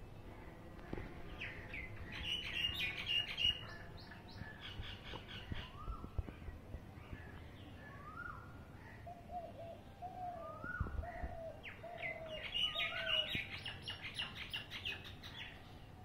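Common myna chattering: two bursts of rapid, harsh chirps and clicks, about two seconds in and again around twelve seconds in. A short rising whistle repeats every few seconds, and a run of about six lower whistled notes comes around nine to thirteen seconds in.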